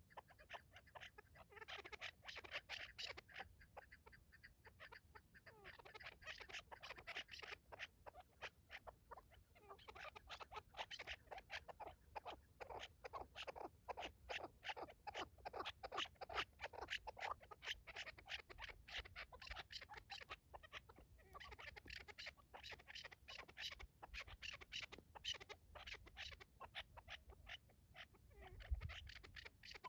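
Chukar partridges calling: rapid chuck-chuck notes, about six a second, in runs of several seconds with short pauses. There is a low thump near the end.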